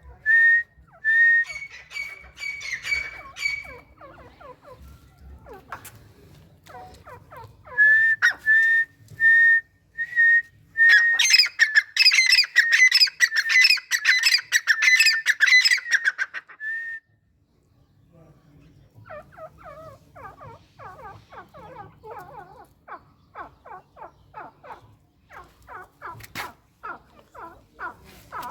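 A pair of grey francolins calling. It starts with loud, repeated whistled notes, swells into a dense burst of overlapping calls about halfway through, then, after a brief pause, turns into a quicker, quieter string of short notes.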